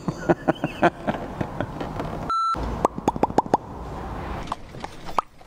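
A short electronic beep a little over two seconds in, then a quick run of about five plopping sound effects, with more scattered plops toward the end.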